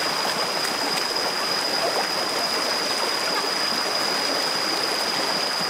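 Shallow rocky stream rushing over stones in a steady, even wash of water noise. A thin, steady high-pitched tone sits above it.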